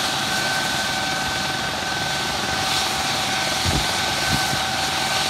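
Air ambulance helicopter, an MD 902 Explorer, running on the ground: a steady high turbine whine over constant noise.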